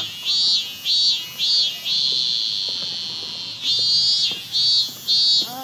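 A cicada singing: a run of buzzing pulses, about three a second, breaks into a long steady held note about two seconds in, then goes back to pulsing.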